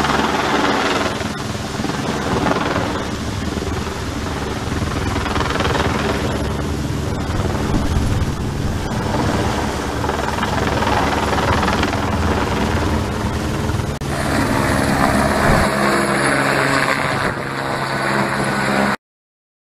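Helicopter hovering low overhead with a load slung beneath it: a loud, steady drone of rotor and turbine. It changes character about 14 seconds in and cuts off abruptly near the end.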